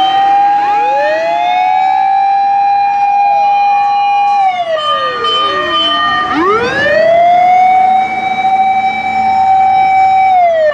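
Emergency vehicle siren wailing: each wail rises, holds a long steady note and then falls. Two wails overlap at first and fall about four and a half seconds in, then a new wail rises about six seconds in and falls away near the end.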